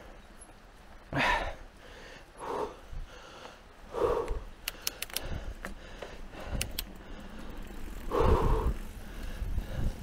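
A mountain-bike rider breathing hard, short loud exhalations every second or few, over a steady low rumble of tyres and wind. A few sharp clicks come near the middle.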